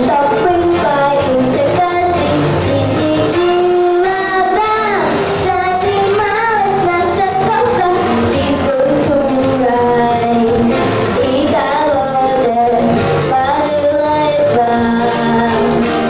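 A girl singing a Russian children's pop song over a backing track with a steady beat, holding and bending long notes.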